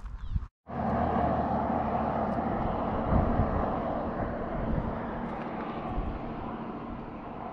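Engine noise of a passing motor vehicle, a steady hum that slowly fades as it draws away. It starts abruptly about half a second in.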